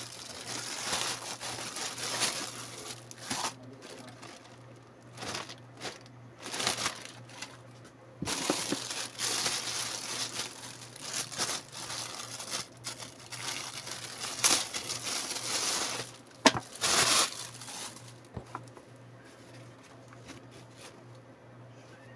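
Plastic packaging crinkling and rustling in irregular bursts as a courier pouch and a clear plastic wrapping bag are handled and pulled open. The rustling dies down to quieter handling for the last few seconds.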